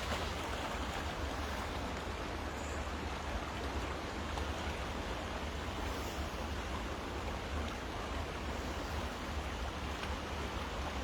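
Fast-flowing river rushing steadily, with rain falling on the water.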